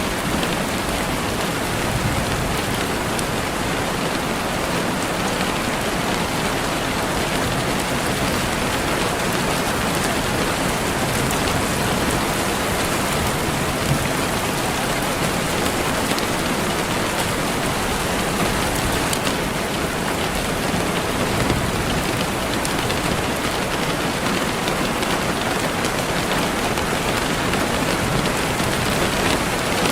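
Steady rain falling and pattering on a surface, an even, continuous hiss of many drops.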